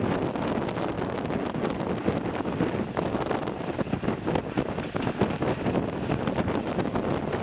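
Heavy wind buffeting on the microphone held out of a moving train's window, over the steady running noise of the train on the track.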